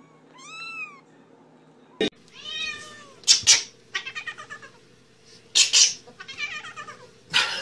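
Domestic cats meowing: one arched meow, a sharp click about two seconds in, another meow, then a string of quick meows broken by short, harsh, noisy cries.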